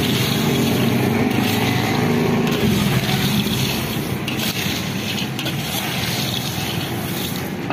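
In-shell peanuts being roasted in hot black sand in an iron wok and stirred with a perforated metal scoop: a steady rattling hiss of shells and sand tumbling, with scraping of the scoop on the pan. A low steady drone runs under it and fades after about three seconds.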